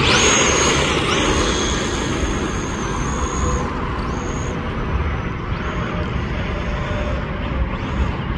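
Custom long-chassis RC car driving on sand: its motor gives short high-pitched whines that rise and fall with each burst of throttle, over a steady rushing noise, growing fainter as the car moves away.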